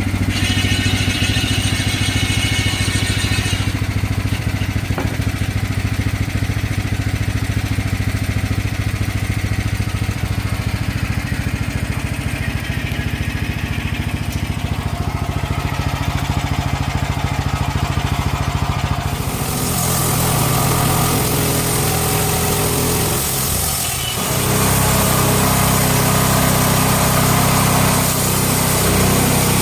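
Engine of a portable bandsaw mill running steadily. About 19 seconds in, the sound grows fuller, with added hiss. There is a brief drop just before 24 seconds, and then it picks up again.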